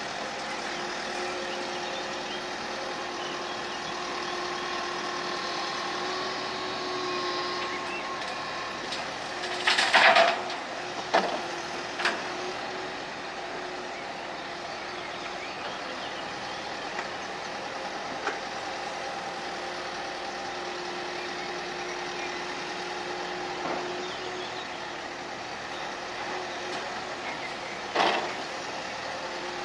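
Wheeled excavator's diesel engine and hydraulics running with a steady drone and a faint whine. Loud bangs as the bucket unloads mud into a steel tipper truck body: the loudest about a third of the way in, two more soon after, and one near the end.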